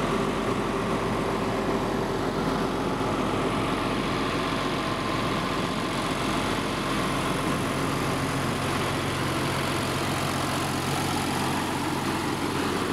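Berthoud Raptor 4240 self-propelled crop sprayer's diesel engine idling steadily.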